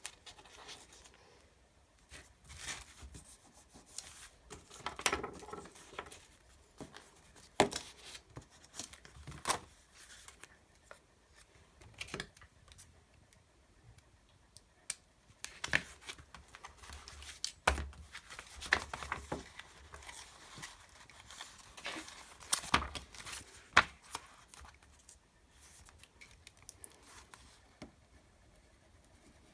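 Paper being handled and worked for crafting: rustling and crinkling, with scattered sharp clicks and taps.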